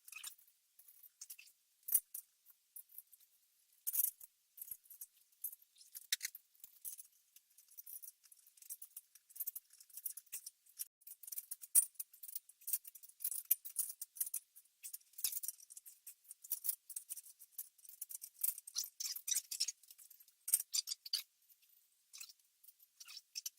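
Irregular light metallic clicks and clinks of bolts, nuts and hand tools being handled during assembly of a 12-ton hydraulic shop press, thickest in the middle stretch.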